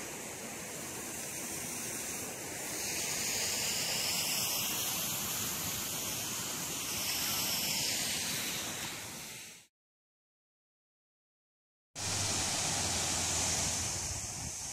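A creek running well, a steady rushing hiss of flowing water that swells about two seconds in. Past the middle it fades into total silence for about two seconds, then the rushing comes back.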